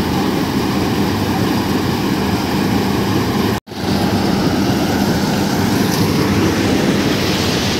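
Panesar SC 94 combine harvester running steadily under load while harvesting paddy, with an even engine pitch. The sound cuts out for a split second about three and a half seconds in.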